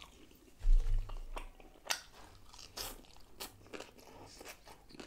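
Close-miked chewing of a mouthful of crispy fried fish and pickled red onion salad: irregular wet, crisp crunches. A low thud comes about two-thirds of a second in.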